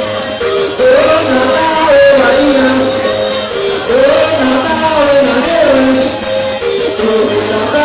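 Upbeat music for dancing, with a steady beat, a high rattling percussion pulse, and a gliding melody line.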